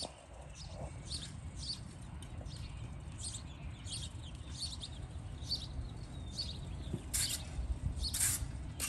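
Metal-tined leaf rake scratching through shredded mulch in short strokes, with two louder scrapes near the end.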